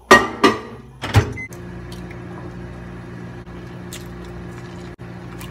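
Microwave oven being shut and started: three sharp knocks in the first second or so, then the oven running with a steady hum.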